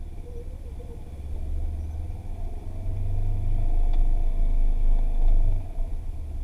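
Low, steady rumble of an off-road vehicle's engine running, growing louder about two and a half seconds in.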